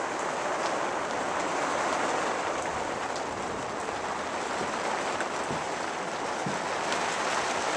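Steady rain falling on the roof of a ger, heard from inside the tent.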